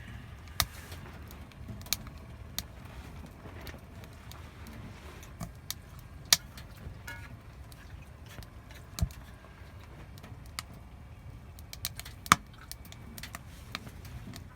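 Burning firewood crackling, with irregular sharp pops of varying loudness over a low steady rumble.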